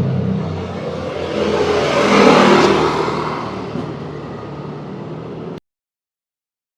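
A motor vehicle passing on the street: engine and road noise swell to a peak about two seconds in, then fade away. The sound cuts off abruptly near the end.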